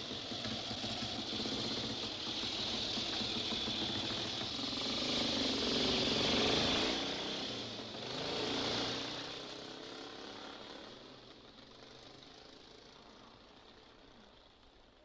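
Motorcycle engine running with a dense, noisy rumble that swells about halfway through, then fades away over the last few seconds.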